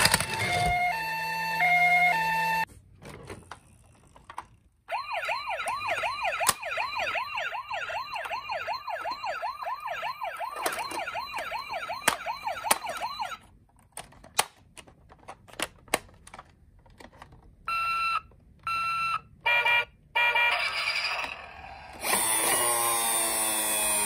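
Electronic sirens of battery-powered toy ambulances: a two-tone hi-lo siren that stops about three seconds in, then a rapid up-and-down yelp siren for about eight seconds. Plastic clicks as the toys are handled in a cardboard box follow, then short beeps, and near the end a rising and falling wail siren starts.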